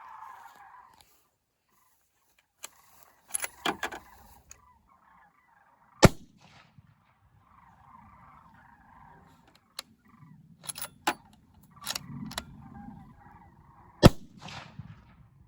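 Two loud, sharp bangs about eight seconds apart, with a cluster of lighter clicks and knocks between them.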